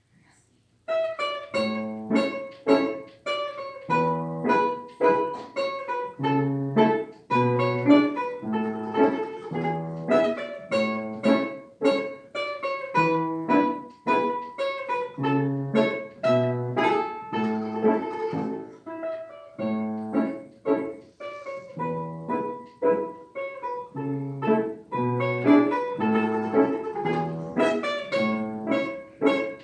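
Solo piano playing a short piece in a steady rhythm of detached notes over repeated bass notes, starting about a second in after a silence.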